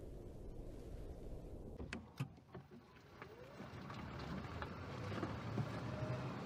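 Faint car driving noise heard from inside the cabin: a low, steady rumble of road and engine with scattered light ticks, growing a little louder. It comes in after a few sharp clicks about two seconds in, which replace a steadier low rumble.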